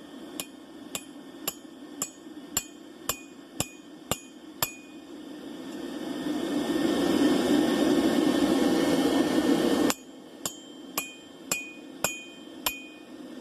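Blacksmith's hammer striking metal on an anvil in two runs of steady blows, about two a second, each with a bright metallic ring. Between the runs a steady rushing noise swells, then cuts off abruptly before the second run of blows.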